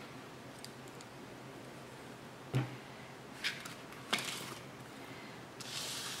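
Faint tabletop handling noises from salt-art painting with a brush: a sharp knock about two and a half seconds in, a couple of light clicks after it, and a brief soft hiss near the end.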